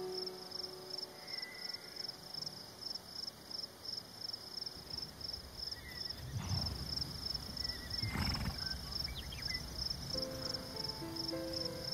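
Crickets chirping steadily, about three chirps a second, over soft background music with sustained notes. Two brief low rumbles come about halfway through.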